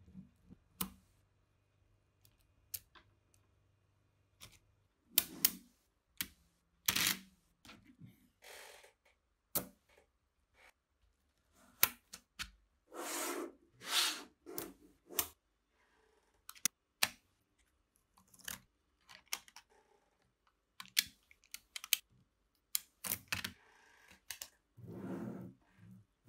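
Small magnetic balls clicking and clacking as slabs of them are pressed together, snapped on and set down on a table. The sound is an irregular string of sharp clicks with short rattling scrapes between them.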